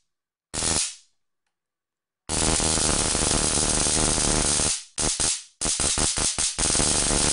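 Loud electric arc crackling between the two screw electrodes of a homemade stun gun driven by a cheap high-voltage boost module, fired in bursts: one short zap, a pause, a long zap of about two seconds, a quick string of short zaps, then a steady zap near the end.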